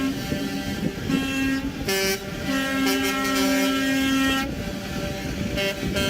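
A vehicle horn tooting several times over an engine rumble. The longest blast, about two seconds, falls in the middle.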